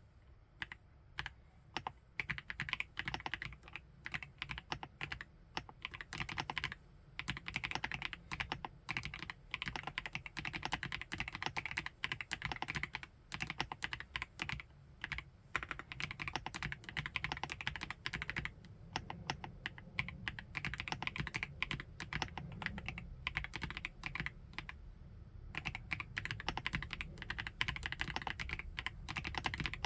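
Typing on an FL-ESPORTS OG98 mechanical keyboard with MX Ice Silver switches: fast, continuous keystrokes in runs broken by brief pauses about every five to six seconds.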